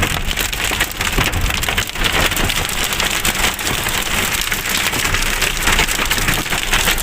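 Heavy rain mixed with hail pelting a moving car's body and windscreen, a dense steady clatter of many small hits.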